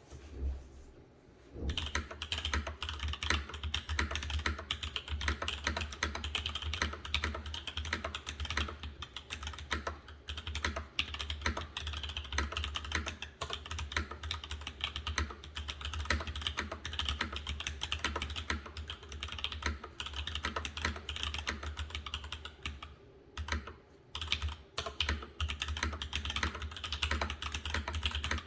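Fast, continuous typing on a Gemini TKL tenkeyless keyboard: a dense run of key presses starting about two seconds in, with a brief pause a few seconds before the end.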